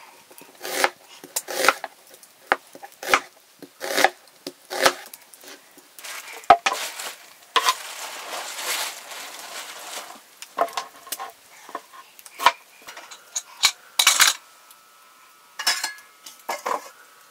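Kitchen knife slicing an onion on a plastic cutting board: sharp knocks of the blade on the board about once a second, then a few seconds of rasping cuts through the onion. Near the end a metal pan and dishes clatter as the pieces go in.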